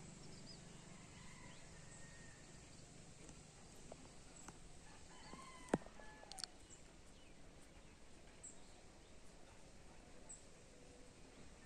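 Faint outdoor ambience with scattered short bird chirps, and one sharp click a little over halfway through.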